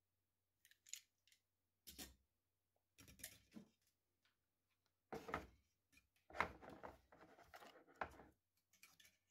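Hands handling plastic 3D-printer filament and a black plastic part: irregular short scrapes and light clicks, then a longer rustle in the second half.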